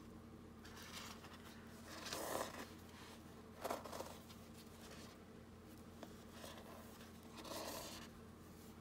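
Fabric tie being pulled through the journal's cardboard cover: several faint, short rustling scrapes of cloth against card and paper, over a low steady hum.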